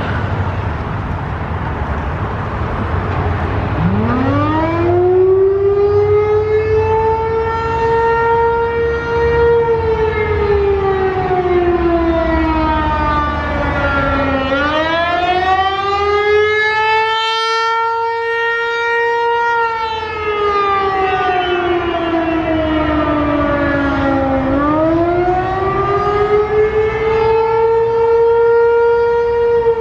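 Federal Signal 508 outdoor warning siren winding up from a low growl about four seconds in and sounding the attack signal: a wail that rises to a high pitch, slides down and climbs again, in cycles of about ten seconds. Low traffic rumble underneath before the siren starts.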